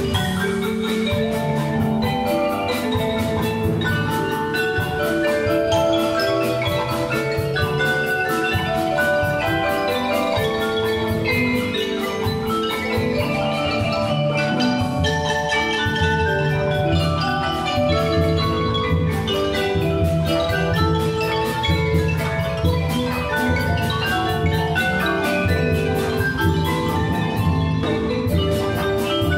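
A school percussion ensemble plays a piece: marimbas and other mallet keyboard instruments carry a quick, busy melody of struck notes over a steady low percussion part.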